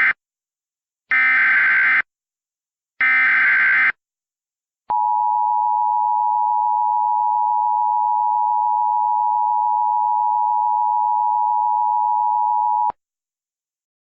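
Emergency Alert System activation: the end of one SAME header data burst and two more full bursts of buzzy digital warble, each about a second long and a second apart, then about eight seconds of the steady two-tone EAS attention signal, which cuts off abruptly. This is the coded header and alert tone that open a broadcast tornado warning.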